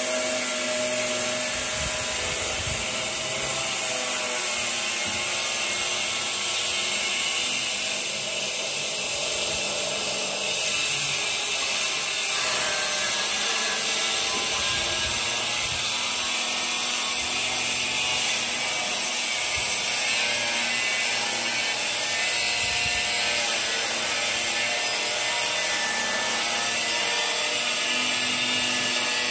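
Steel putty knife scraping and spreading wall filler across a rough concrete wall, a continuous rasping rub over a steady hiss.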